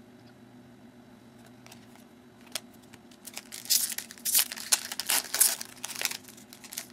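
Foil wrapper of a trading-card pack crinkling and tearing as it is opened by hand, a dense crackling that starts about three seconds in and lasts some three and a half seconds.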